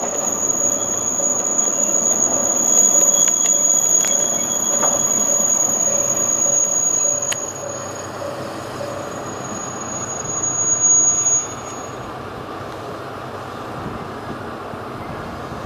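Kanto Railway KiHa 2203/2403 diesel railcar moving slowly, its steel wheels giving a steady high-pitched squeal. The squeal stops about seven seconds in, comes back briefly at around ten to eleven seconds, then cuts off and leaves a quieter, steady rumble.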